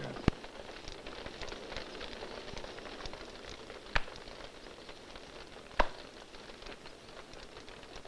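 A wood fire crackling, with a sharp pop near the start, then two loud, sharp hand claps about two seconds apart: the ritual claps of Shinto worship.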